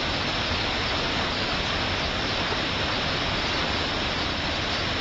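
A waterfall of about 18 metres, running high after a cyclone, pouring into its plunge pool: a steady, loud rush of falling water.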